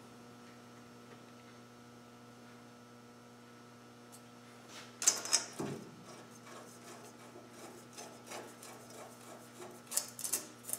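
Steady electrical hum, with small metallic clicks and clinks about halfway through and again near the end as steel bolts are handled and fitted into a Land Rover Defender's front stub axle and hub.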